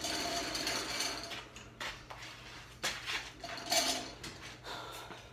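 Metal rattling and rasping, then a few separate metallic clanks.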